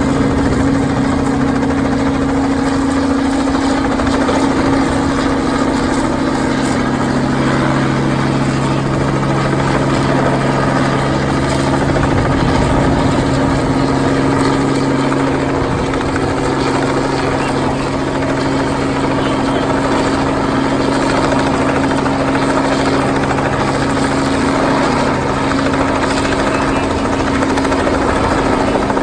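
Helicopter running with a loud, steady drone of rotor and engine, its low hum holding one pitch.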